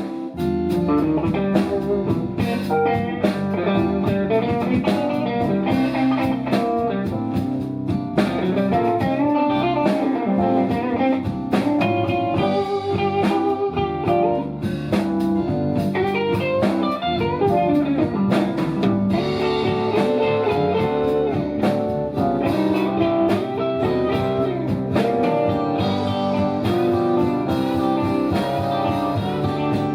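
Live blues band playing an instrumental break: a lead instrument runs quick solo lines over drums, bass and rhythm guitar.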